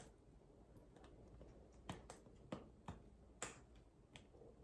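A handful of faint, sharp clicks and taps from hands handling a leather purse and working at its closure, starting about two seconds in.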